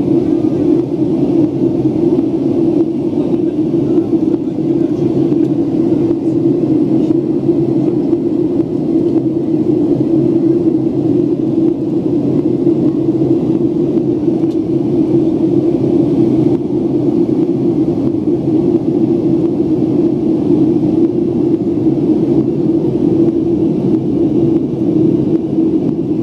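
Steady cabin noise of a jet airliner in flight: the engines and rushing air heard from inside the cabin as a loud, unchanging low drone.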